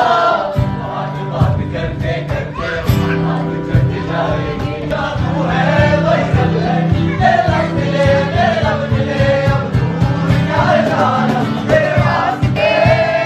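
Music with a group of voices singing together over a steady beat.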